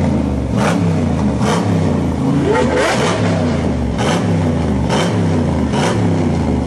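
Supercar engine revved again and again, about once a second, each blip rising and falling in pitch with a sharp crack at its peak.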